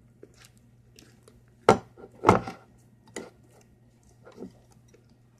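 A mixing utensil knocking and scraping against a bowl while stirring slime after activator is added. There are two loud knocks about two seconds in and a few softer ones afterwards.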